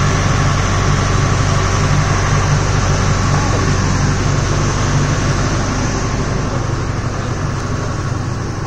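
A 44 kVA diesel generator set running steadily: a loud, even engine drone with a low hum. It grows somewhat fainter near the end.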